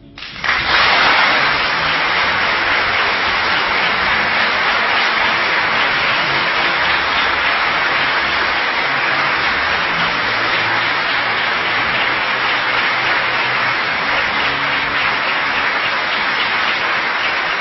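Large crowd applauding: a long, steady ovation that breaks out suddenly about half a second in, right after a rousing line of a political speech.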